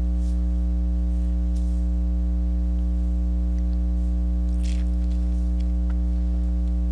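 Steady electrical mains hum, a low buzz with a stack of overtones, running without change under the recording. A faint brief hiss a little past two-thirds of the way through.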